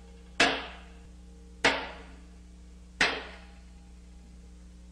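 Hand-held kitchen chopper slammed down three times, about a second and a quarter apart, each a sharp knock with a short ringing tail.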